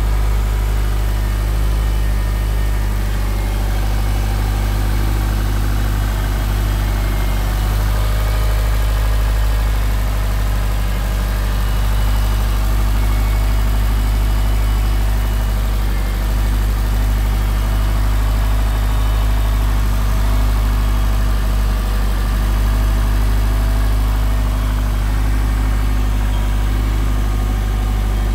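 Heavily modified 2005 Subaru Baja Turbo's turbocharged 2.5-litre flat-four idling steadily, warming up after a cold start.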